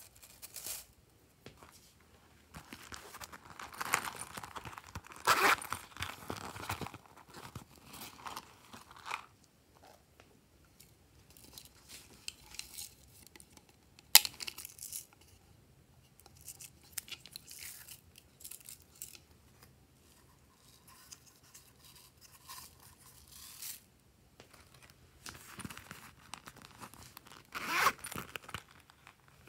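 Close-up handling noises of craft items: crinkling and rustling of shredded paper strands, and a single sharp plastic click about halfway through while a small plastic toy is handled. Near the end a zipper on a plastic pouch rasps open.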